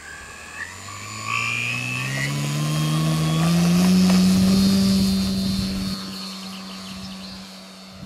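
Electric motor and propeller of a Seagull Gee Bee Model Z scale RC plane opening up for takeoff. The whine rises in pitch and loudness over about four seconds, then holds steady in pitch and fades as the plane lifts off and climbs away.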